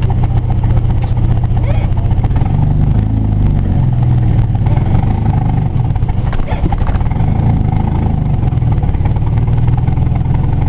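Vehicle engine running as heard from inside the cabin while driving off; the engine note climbs as it accelerates a few seconds in, then settles to a steady cruise.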